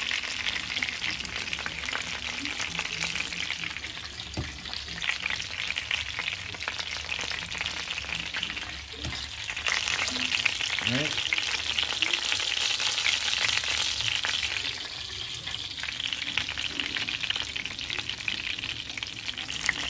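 Chicken drumsticks frying in hot oil in a nonstick pan: a steady sizzle that grows louder about halfway through.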